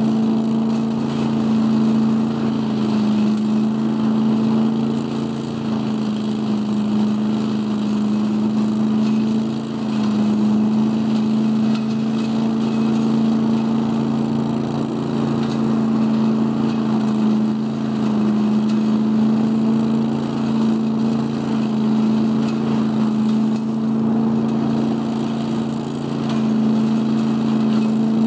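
Scag Giant Vac leaf vacuum, powered by an 18 hp Briggs & Stratton Vanguard engine, running steadily and loudly while it sucks leaves up through its 10-inch hose. A steady engine hum sits under the rush of air and leaves.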